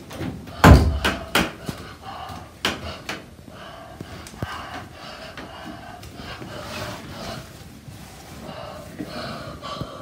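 A heavy thump about a second in, followed by several sharper knocks over the next two seconds, with faint breathy vocal sounds throughout.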